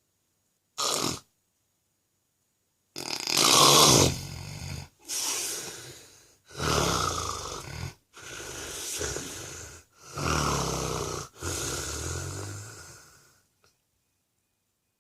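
A man with sleep apnea snoring: one short snore about a second in, a silent gap, then six loud snoring breaths in quick succession that stop near the end. The silent gaps between snores are where he stops breathing.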